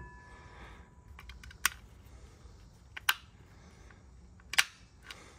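Clip-on detachable pan handle clicking as it is handled: three sharp clicks about a second and a half apart, with a few lighter ticks, just after a stainless steel frying pan's faint ring dies away at the start.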